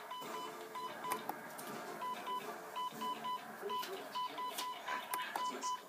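Electronic fire alarm beeping: short high-pitched beeps repeating several times a second, with music and a few light clicks underneath.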